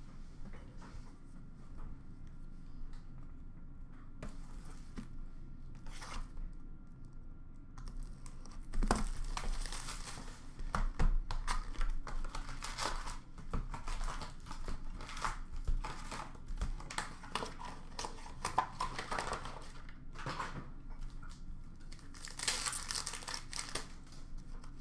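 Upper Deck hockey card pack wrappers being torn open and crumpled by hand: a run of crinkling and ripping, sparse at first and busy from about nine seconds in.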